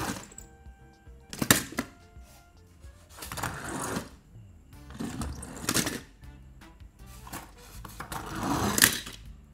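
Die-cast toy cars rolling down a plastic board one after another, about four runs, each a swelling rolling rush that ends in a sharp click. Soft background music plays underneath.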